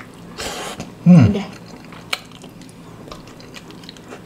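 A sharp hissing breath, then a short vocal groan falling in pitch, from someone reacting to the heat of very spicy noodles. A few light clicks of utensils follow.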